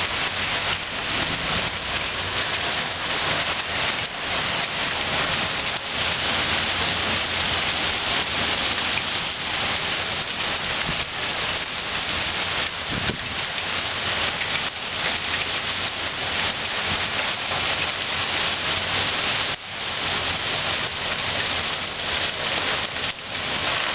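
Heavy rain pouring down in a severe thunderstorm, a steady dense hiss of water striking surfaces.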